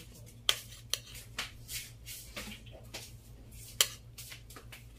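Irregular sharp clicks and taps of kitchenware against plastic containers, about eight in all, the loudest a little before four seconds in, as mango slices are moved from a plastic bowl into a plastic tub.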